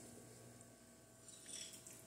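Near silence, with a faint soft scrape about a second and a half in: a fork cutting into moist chocolate cake on a plate.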